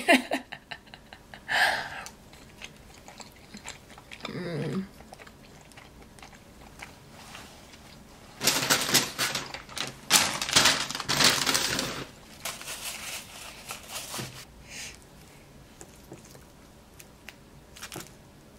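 Close-up chewing of poutine, with small clicks and taps. About eight seconds in, a brown paper takeout bag crinkles and rustles for about four seconds, the loudest sound, with lighter rustles after it.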